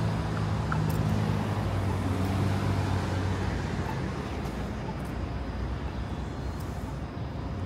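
City street traffic: a motor vehicle's engine hums close by, dying away about halfway through, over a steady wash of road noise.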